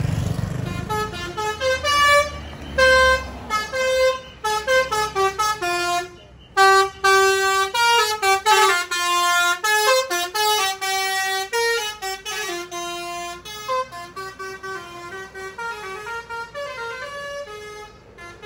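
Big tour bus's telolet multi-tone horn playing a fast tune of short notes, one after another, growing quieter over the last few seconds.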